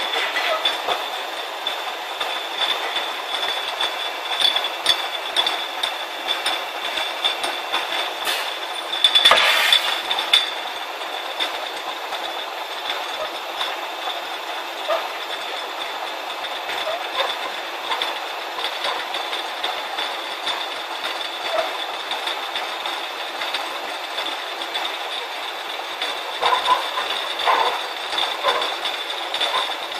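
Eight-head inline beer bottle filler running, a steady machine noise with a constant high-pitched whine and glass bottles clinking against each other and the guides. About nine seconds in comes a loud rush of noise lasting over a second.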